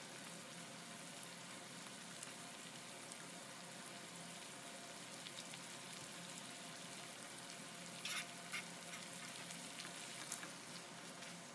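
Chicken thighs sizzling steadily in melted butter in a nonstick pan. A few sharp clacks of tongs against the pan, about eight seconds in and again near the end, as the pieces are turned.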